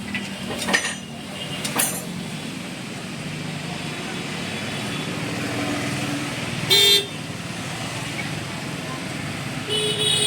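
Road traffic noise with a short vehicle horn toot about two-thirds of the way in, and another horn starting near the end.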